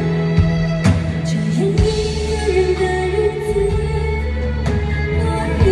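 Live slow pop ballad: a female singer's voice comes in about two seconds in, wavering with vibrato over the band's accompaniment, after a sharp hit about a second in.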